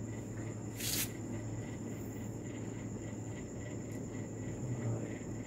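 Crickets trilling steadily as one unbroken high-pitched tone, over a constant low hum. About a second in there is one short crackle of paper adhesive backing being peeled off a small stick-on emblem letter.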